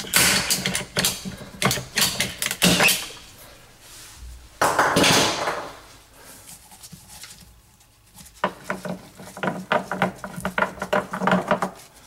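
Ratcheting PVC pipe cutter clicking as it is squeezed through a white PVC drain pipe, with a harsh crunch about five seconds in as the blade goes through the plastic. A second run of quick clicks and knocks follows near the end.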